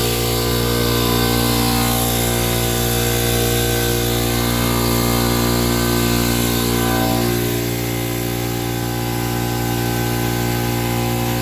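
Steady mechanical hum of a running motor, with a slight drop in level about seven and a half seconds in.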